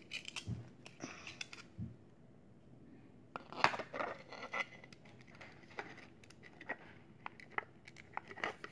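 Plastic Lego bricks clicking and rattling as a built section is handled and turned over, with a cluster of sharper clicks about halfway through.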